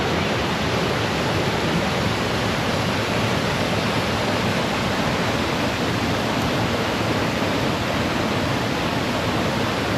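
Steady rush of river water pouring over a waterfall, an even noise close to the microphone.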